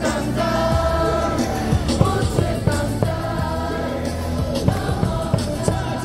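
Baseball player cheer song playing loudly over the stadium speakers with a steady beat, the crowd singing along in chorus.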